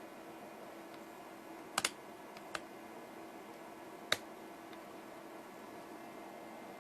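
Faint steady hum with a few light, sharp clicks: a quick double click about two seconds in, a single one a little later, and another around four seconds in.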